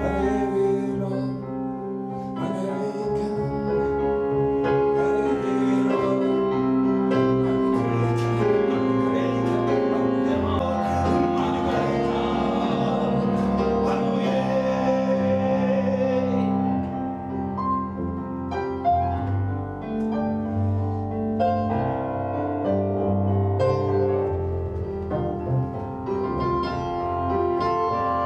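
Background music led by piano, with held melodic notes changing throughout.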